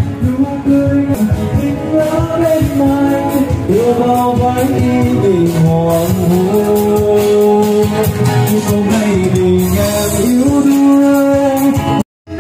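Background music: a song with a singing voice over instrumental backing. It drops out for a split second near the end.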